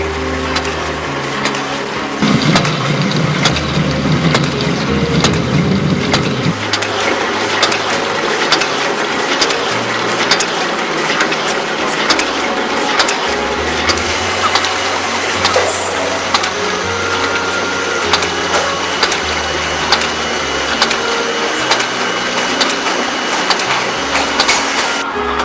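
Semi-automatic book sewing machine running, with rapid, continuous mechanical clattering.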